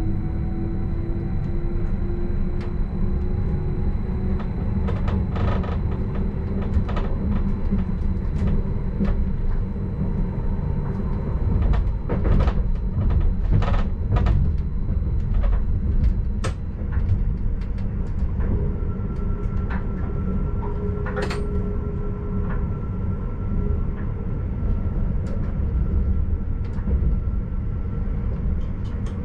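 Stadler RABe 515 double-deck electric train running, heard from the driver's cab: a steady rumble of wheels on rail with sharp clicks and clacks as it passes over points, thickest about twelve to fourteen seconds in. A faint drive whine rises slowly in pitch over the first ten seconds, and a steady high tone sounds from about nineteen to twenty-seven seconds.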